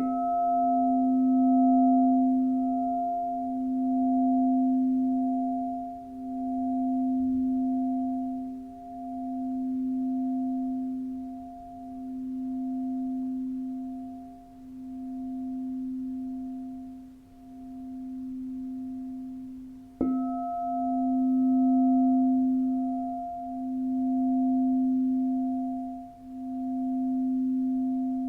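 Crystal singing bowl struck, once at the start and again about twenty seconds in, each time ringing on in a long low tone with fainter higher overtones. The tone swells and fades every two to three seconds in a slow pulsing waver.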